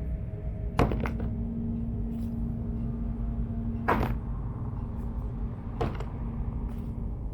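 Three sharp clicks and knocks as the dice set and its box are handled, about a second in, about four seconds in and about six seconds in, over a low steady hum.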